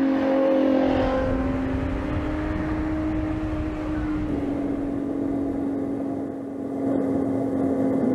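Ferrari 812 Competizione's 6.5-litre naturally aspirated V12 running under steady load on track. Its pitch holds nearly level, rises slightly over the first few seconds, then steps a little lower about four seconds in.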